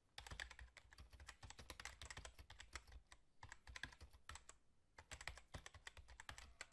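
Faint typing sound effect: rapid, irregular keyboard key clicks, broken by two short pauses a little past the middle.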